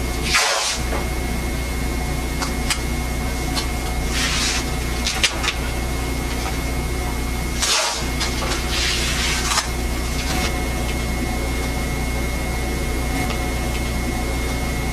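Masking tape being pulled off the roll in several short tearing strips, a few seconds apart, with small clicks as it is pressed down to fix watercolor paper to a drawing board. A steady low hum runs underneath.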